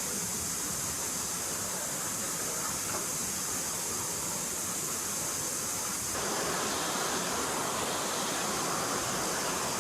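Forest stream flowing, a steady rushing of water; about six seconds in it grows a little louder and fuller.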